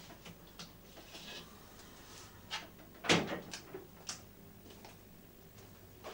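A tall kitchen door shut with one sharp knock about three seconds in, among a few lighter clicks and knocks of things being handled.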